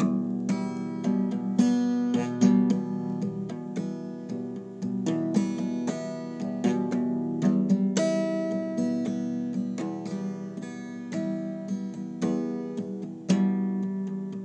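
Acoustic guitar playing, strummed and picked chords ringing one after another in a quick, steady succession.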